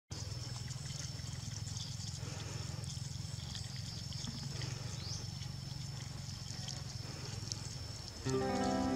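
Outdoor ambience: a steady high-pitched whine over a low hum, with scattered faint ticks. Background music comes in near the end.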